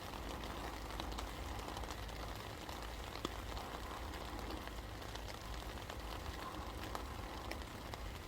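Steady rain coming down, with many individual drops ticking sharply over a continuous hiss of rainfall and a constant low rumble underneath.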